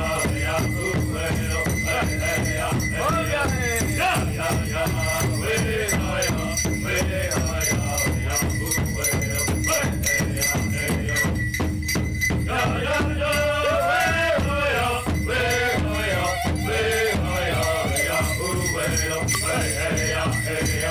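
Powwow drum group singing a men's traditional (victory) dance song in unison over a steady beat struck on a large powwow drum by several drummers, with the dancers' bells jingling.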